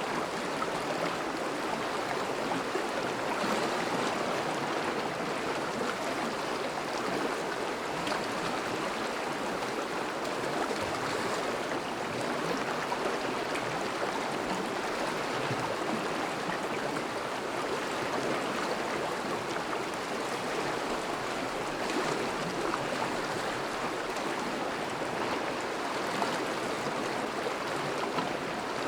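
Thawing river's current flowing and burbling steadily over and around ice.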